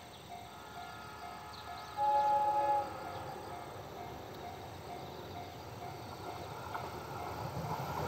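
Japanese level-crossing warning bell ringing steadily, about two strikes a second. About two seconds in, the approaching E653 series limited express gives one horn blast just under a second long, and near the end the rumble of the oncoming train rises steadily.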